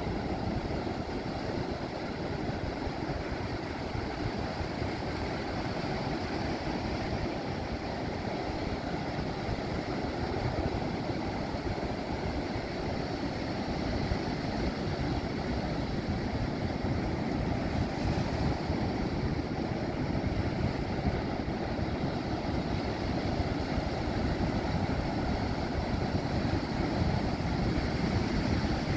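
Ocean surf breaking and washing up a sandy beach: a steady low rush of water, growing a little louder in the last few seconds.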